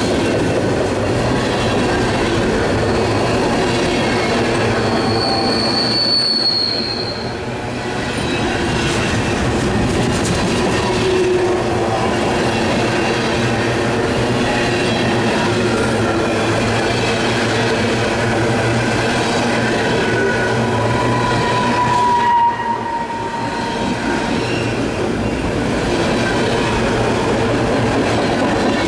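CSX freight train's container flatcars rolling past at close range: a steady rumble and rattle of steel wheels on rail. A high wheel squeal rings out about six seconds in, and a lower squeal around twenty seconds in.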